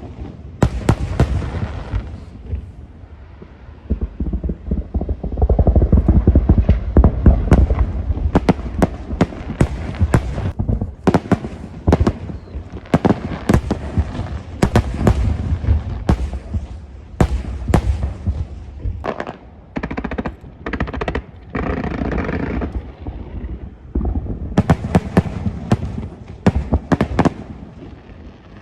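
Fireworks display: a dense run of sharp bangs and crackles over a deep rumble of booms, with a few brief lulls.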